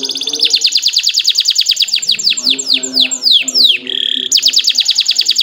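Domestic canary singing: fast rolling trills of rapidly repeated high notes, broken about two seconds in by a run of slower down-sweeping whistles and a short buzzy note, then a fast trill again that stops at the very end.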